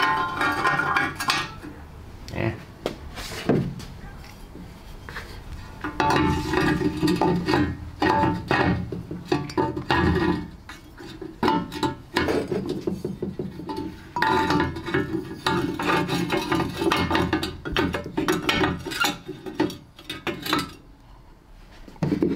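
Glazed ceramic pieces clinking, knocking and scraping against each other and the table as they are handled and fitted together into a sculpture, in a dense run of clatter that thins out near the end.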